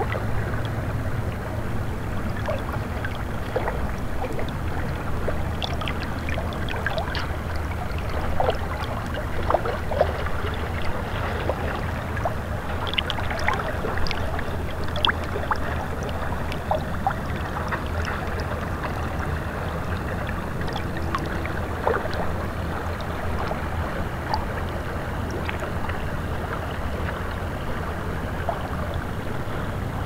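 River water lapping and gurgling against shoreline rocks: a steady rush with many small irregular splashes and plops.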